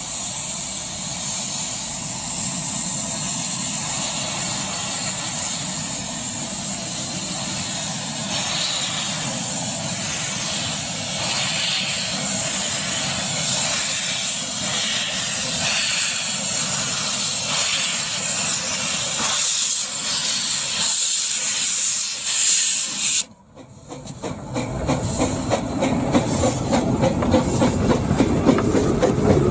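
15-inch gauge steam locomotive hissing steam from its open cylinder drain cocks as it draws slowly into the station. After a brief drop-out about three-quarters of the way through, the locomotive and its carriages run past close by, the wheels clicking regularly over the rail joints.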